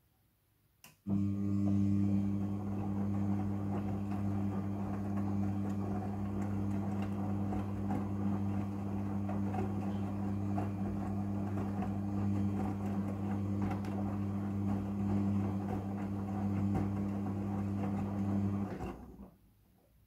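Front-loading washing machine drum turning in one direction: the motor starts with a click about a second in, hums steadily while tumbling the wet laundry, then winds down and stops near the end.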